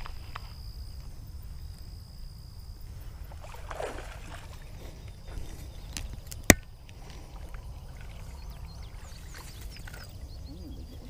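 Low, steady rumble of wind buffeting the microphone, with one sharp click about six and a half seconds in.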